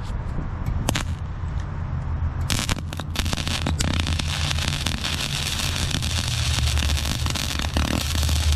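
Wire-feed (MIG) welder arc crackling as a bead is laid: a brief strike about a second in, then steady sputtering welding from about two and a half seconds on, over a low steady hum.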